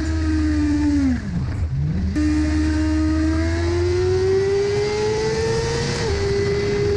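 Sport motorcycle engine at high speed, heard from the bike itself with heavy wind noise on the microphone. The revs drop sharply about a second in and come back about two seconds in, then climb steadily, dip briefly near six seconds and ease off slightly.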